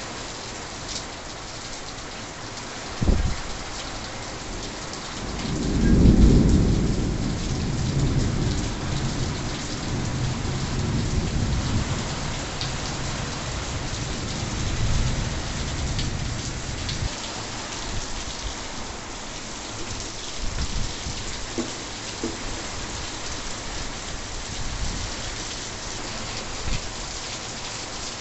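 Heavy rain falling steadily, with a brief sharp thump about three seconds in and a deep rolling thunder rumble that builds to its loudest about six seconds in and fades away over the next ten seconds.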